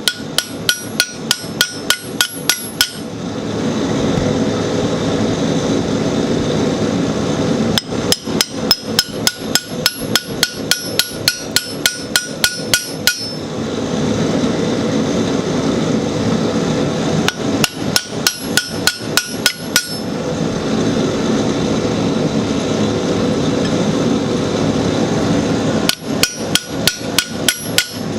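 Hammer striking a U-shaped chisel to cut a line down the middle of a hot iron bar on the anvil: four runs of quick blows, about four or five a second, each strike ringing metallically. Between the runs, a steady rushing noise.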